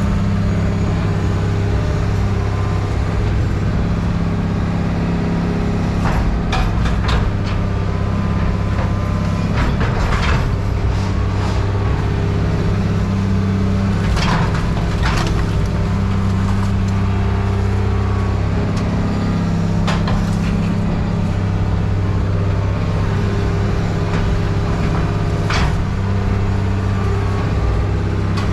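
A heavy machine's engine running steadily, with several sharp clanks and knocks of scrap metal being handled, spread a few seconds apart.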